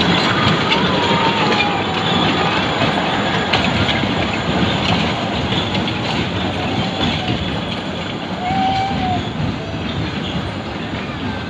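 A children's ride train rattles along its miniature track, wheels clicking over the rail joints, with a few brief squeals. It grows a little fainter as it moves away round the loop.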